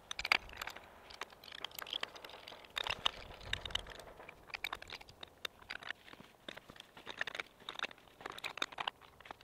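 Irregular crinkling and rustling with many small clicks: thread tape being wrapped onto the threads of a pipe fitting, and the fitting handled in gloved hands.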